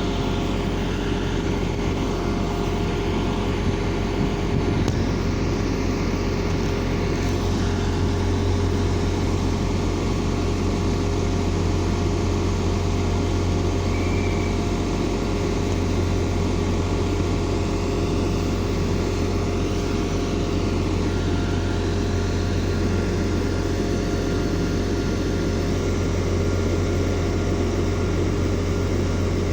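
Diesel train engine idling steadily with a constant low hum and a few held tones above it.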